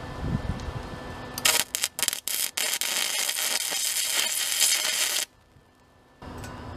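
Wire-feed (MIG) welder welding a steel bracket: a few short stuttering starts about one and a half seconds in, then the arc runs steadily for about three seconds and stops abruptly.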